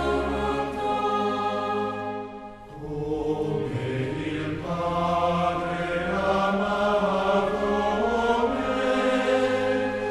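Slow sacred choral chant: voices hold long sustained notes, with a short break between phrases about two and a half seconds in.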